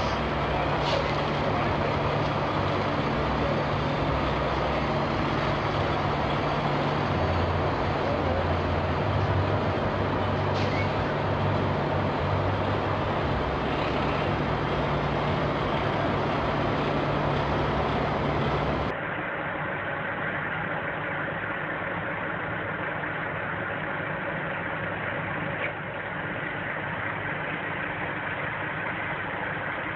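Semi-truck diesel engine running steadily at low speed. About two-thirds of the way through, the sound cuts abruptly to a quieter, more muffled engine recording.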